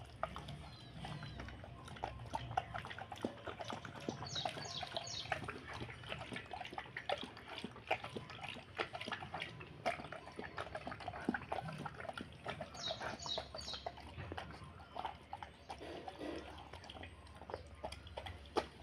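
A dog chewing and eating roti: a long run of irregular wet mouth clicks and smacks.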